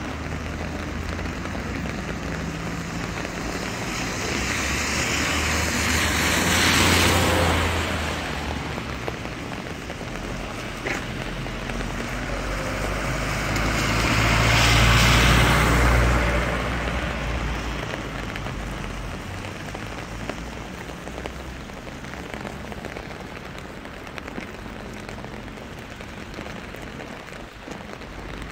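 Steady rain falling. Two vehicles pass on the wet road, each one's tyre hiss and rumble swelling and fading, the first peaking about a quarter of the way in and the second just past the middle.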